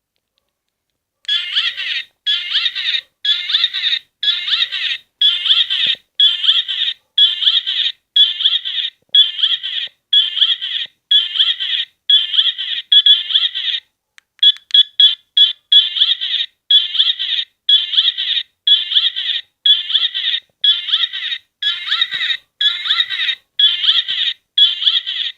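A cheap knockoff Pikachu keyring torch's tiny built-in speaker plays a short, tinny electronic sound clip over and over, about once a second, a clip the uploader thinks says "I love you". About 14 seconds in, the repeats break into a quick stutter of clicks and then carry on.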